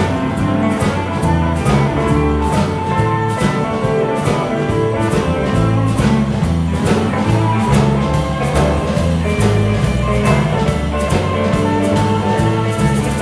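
Live blues band playing an instrumental passage: electric guitars and bass over a steady drum-kit beat, with a hand shaker kept going in time.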